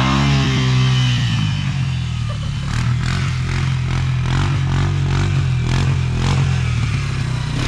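ATV engine revving up at the start, then running steadily at high revs, with a run of irregular clattering knocks through the middle.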